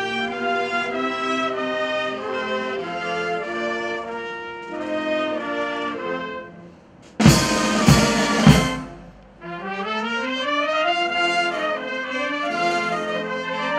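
Military wind band of clarinets, saxophones and brass playing held chords. Partway through, the music breaks for three loud cymbal crashes with drum strokes, then comes back in with a rising run of notes.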